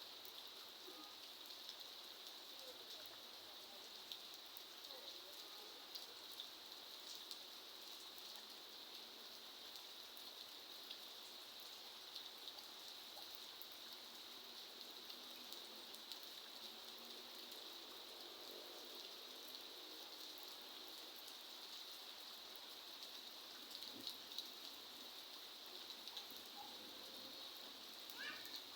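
Light, steady rain falling, with scattered faint ticks of drops striking surfaces.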